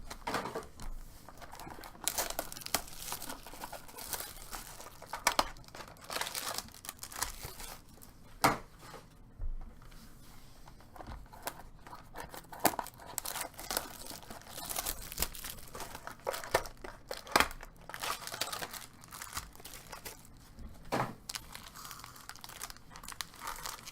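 Plastic wrapping and cardboard card-box packaging crinkling and tearing as it is opened by hand, with irregular sharp snaps and rustles throughout.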